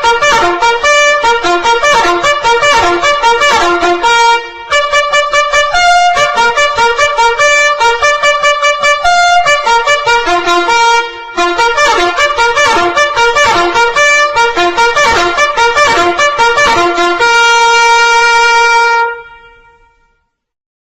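Instrumental music with a trumpet-like brass lead playing quick repeated notes, ending on one long held note that fades away near the end, then silence.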